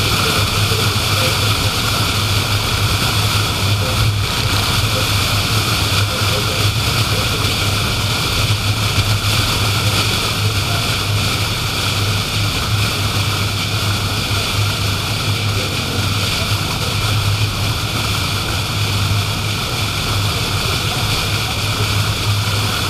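Steady road and tyre noise with a low engine hum, heard from inside a car cruising at speed.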